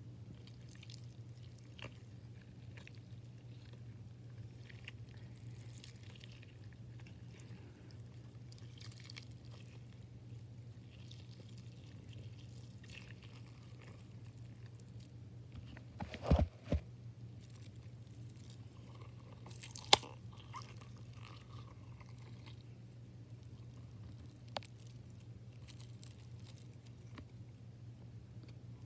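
Soft foam squishy toy being cut open and handled: faint crackly, crunchy sounds over a steady low hum, with two louder knocks about sixteen seconds in and one sharp click about four seconds later.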